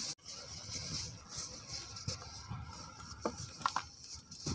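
Dry pure cement powder crumbled by hand and sifted through a plastic sieve, giving a soft pattering and hiss of falling powder with scattered faint clicks and light thuds.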